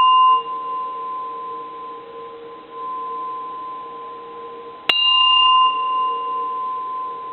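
Bronze Japanese Buddhist personal bell ringing on from a strike, then struck again about five seconds in. A steady ringing tone holds on while the higher overtones fade within a second or two of each strike.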